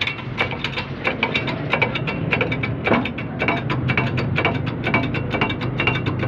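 Hand-pumped hydraulic bottle-jack shop press pressing a new wheel bearing into a steering knuckle: a rapid, uneven run of metallic clicks and clanks, several a second, over a steady low hum.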